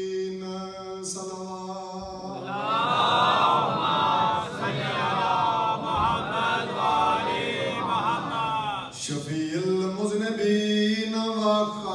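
Man singing a Shia devotional recitation unaccompanied, holding long steady notes at first, then a long, loud, ornamented phrase that bends up and down through the middle, and settling back onto held notes near the end.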